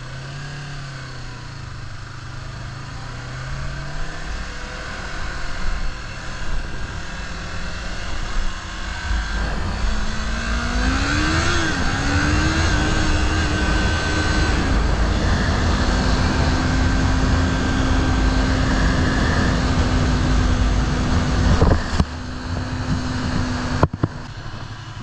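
Motorcycle engine running at low revs, then accelerating with a rising pitch and settling into a steady cruise, with wind rushing over the microphone that grows louder as speed builds.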